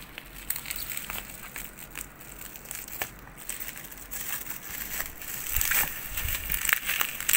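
Plastic bubble wrap crinkling and rustling as hands pull and unwrap it, with scattered sharp clicks, louder in the second half.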